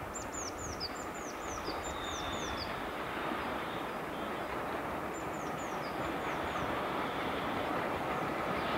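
A Hunslet Austerity 0-6-0 saddle tank steam locomotive draws near with its train, running steadily and growing louder. A bird sings runs of short, high, falling notes near the start and again about halfway through.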